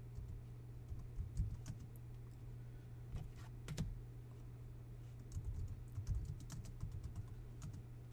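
Typing on a computer keyboard: irregular keystrokes in short clusters with pauses between them, over a steady low hum.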